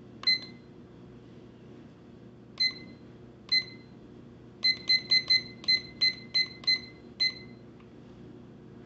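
La Crosse Technology W88723V2 alarm clock beeping at each button press while its time is being set: a few short high beeps a second or two apart, then a quick run of about nine, roughly three a second, as the minutes are stepped up.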